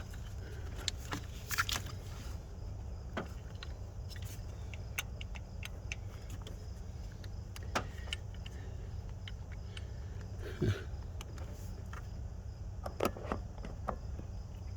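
Scattered small metallic clicks and taps of hand tools and bolts being handled on the engine's distributor, over a steady low rumble.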